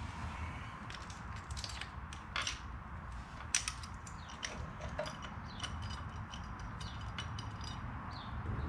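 Small metal bolts and a bracket clicking and scraping as they are fitted and started into their holes by hand: a scatter of light metallic ticks, with a sharper click about three and a half seconds in.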